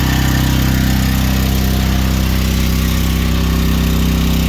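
Portable 6500-watt gasoline generator running loud and steady, its engine note unchanging.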